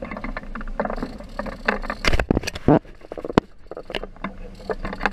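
Sportfishing boat under way at sea: a steady low engine rumble and water rushing along the hull, with a run of sharp knocks and rattles that are loudest a little past halfway.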